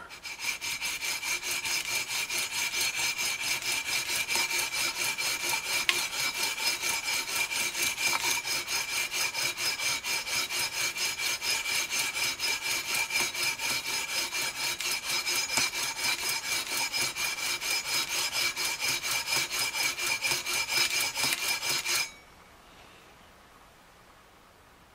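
320-grit sandpaper on a long aluminium levelling beam, stroked rapidly back and forth across the EVO gold fret wire of a guitar neck to level the frets. The even rasping strokes stop about 22 seconds in.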